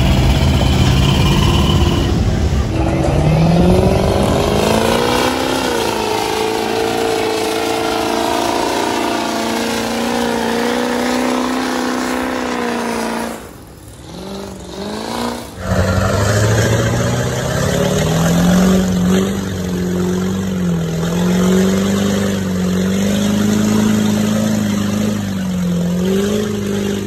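Big truck engines working hard in mud, revving up about three seconds in and held at high revs. The sound drops away briefly about halfway through, then another engine runs at high revs with its pitch wavering as it pulls.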